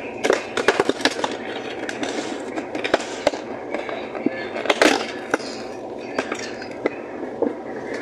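Aluminium soda cans in a cardboard 12-pack box clinking and knocking against each other and the box as they are pulled out by hand, with cardboard rustling: a run of irregular sharp clicks and knocks, busiest a little before the middle.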